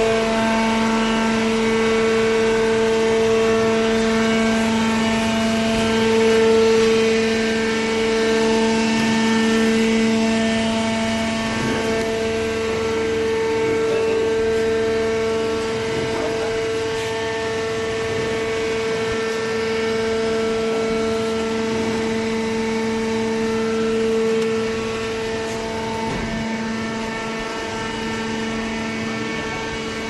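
Cardboard baler's electric motor and hydraulic pump running with a steady, loud hum.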